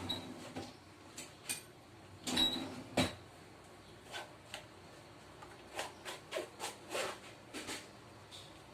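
Kitchen sieve and utensils knocking and scraping against a bowl as blended lemonade is strained off the lemon peels. There are irregular small clicks and taps, with two louder knocks about a third of the way in.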